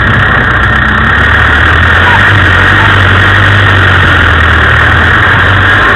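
Land Rover engine running steadily as it drives a rutted off-road dirt track: a constant, loud low drone with a heavy rushing noise over it.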